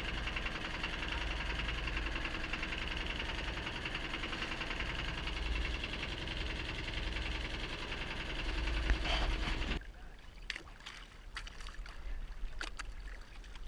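Small fishing boat's engine running steadily under way, with a low rumble and water noise. About ten seconds in it cuts off abruptly, leaving quieter water sloshing at the hull with a few light knocks.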